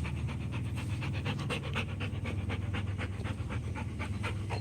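A dog panting quickly and evenly, about five breaths a second, as it is during a spell of fetch play.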